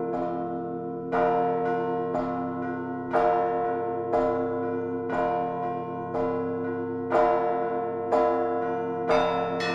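Church bells pealing (a Russian perezvon): strikes about once a second, some heavier and some lighter, over the steady hum of bells still ringing from earlier strokes.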